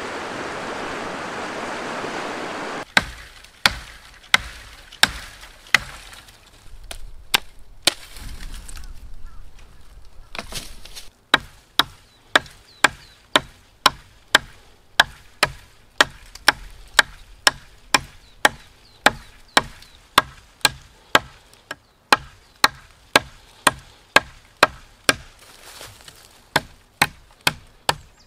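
Rushing river water, then a fixed-blade knife hacking into a wooden branch. Sharp chops come about twice a second in a long run, with a pause of a few seconds near the middle.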